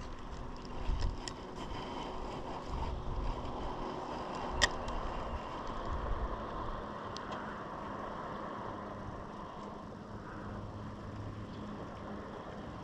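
Quiet, steady background noise on a fishing boat, with low handling rumbles near the start and a single sharp click about four and a half seconds in.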